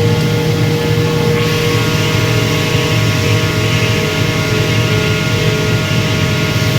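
Atlas Copco vertical-type air compressor running with a steady hum and several whining tones, growing hissier about a second and a half in. This is the abnormal running noise presented as a sound problem.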